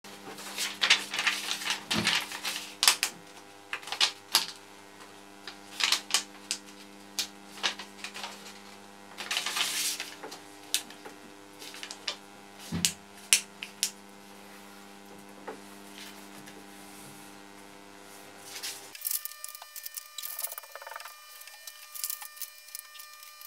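Printed paper being folded and creased by hand into an envelope on a cutting mat: irregular taps, clicks and short paper rustles. A steady low hum lies underneath and cuts off about 19 seconds in.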